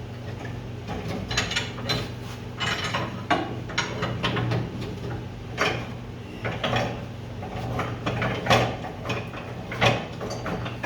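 Irregular metal clicks, clinks and scrapes of hand tools working on the compressor's threaded rod, over a steady low hum.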